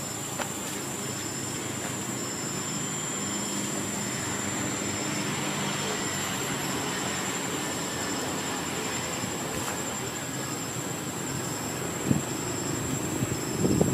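Insects in the forest keep up a steady high-pitched whine, with a shorter chirp repeating about twice a second, over a low steady hum. There is a single soft knock about twelve seconds in.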